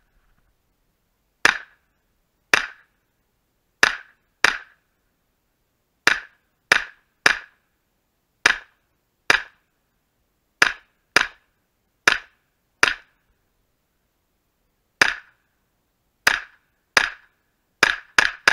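Pistol-calibre carbine firing about eighteen rapid single shots, at uneven spacing from about half a second to two seconds apart, several in quick pairs, with the last few fired close together near the end.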